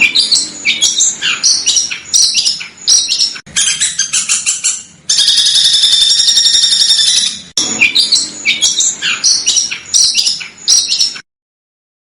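Recorded songbird calls used as a tutor track for competition birds: rapid, sharp, harsh chirps, many sliding down in pitch. About five seconds in, a dense steady trill runs for about two seconds. The calls stop abruptly shortly before the end.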